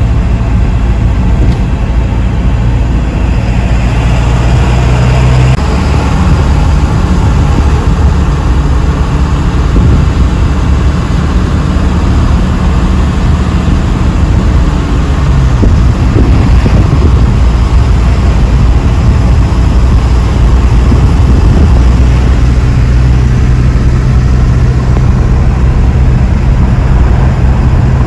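Cabin noise of a moving vehicle: a steady low engine and road drone with tyre and wind hiss over it.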